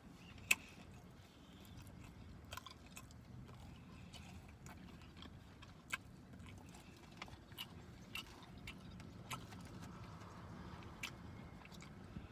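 Mouth sounds of someone eating lemon pepper chicken wings: quiet chewing and biting with a dozen scattered sharp clicks and smacks.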